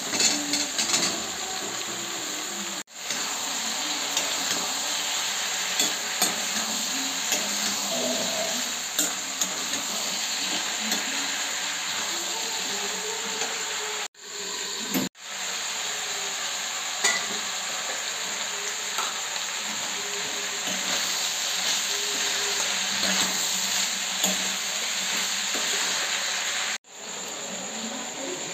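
Long beans and potato pieces frying in oil in a steel kadhai, sizzling steadily, with a metal spatula scraping and clicking against the pan as they are stirred. The sound breaks off briefly a few times.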